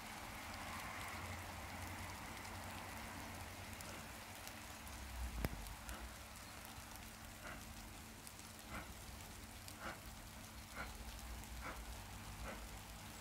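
Bavarian S 3/6 steam locomotive pulling away: exhaust chuffs begin about seven seconds in, roughly a second apart and slowly quickening, over a steady hiss. A single sharp click comes about five seconds in.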